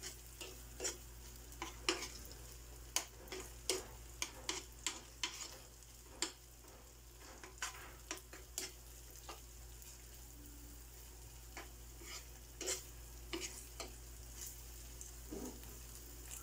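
Metal spoon stirring garlic and tomato paste in a nonstick frying pan, with irregular clicks and scrapes of the spoon against the pan over a faint sizzle.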